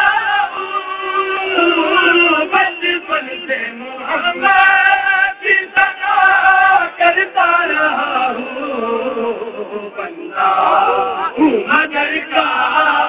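A man's voice singing a naat, an Urdu devotional poem in praise of the Prophet, into a microphone in a chant-like melody with long held notes and short breaks between phrases.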